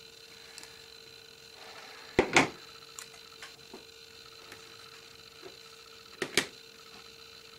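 Sharp plastic clicks and snaps from hands handling small plastic drill-storage containers and scissors on a tabletop. Two loud double clicks come about two seconds in and again about six seconds in, with lighter ticks between, over a faint steady hum.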